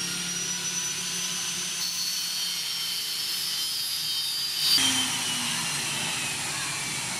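Electric angle grinder running at a high whine and grinding into a steel bearing ring clamped in a vise, its pitch slowly falling as the disc bites. A brief loud burst comes about two-thirds through, after which the lower whine keeps sinking.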